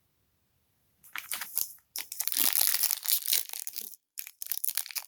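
Foil trading-card pack wrapper crinkling and tearing as it is opened, in dense crackly spells from about a second in, with a brief pause near the end.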